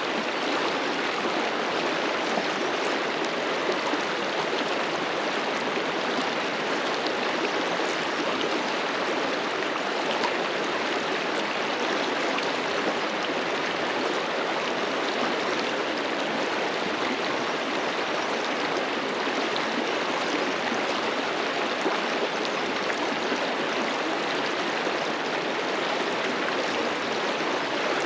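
Fast-flowing river rushing steadily over rocks.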